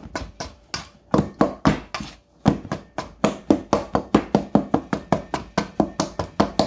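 Pastry blender chopping cold cubed butter into flour in a bowl, cutting it in for biscuit dough: quick, regular knocks about four a second, with a short pause about two seconds in.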